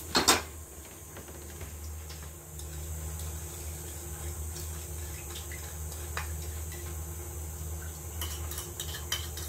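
Gas stove burner running under a frying pan with a steady low hum, while liquid is poured into the pan from a bowl and stirred with a spoon, with a few light clicks of the spoon. A short loud rush about a quarter second in.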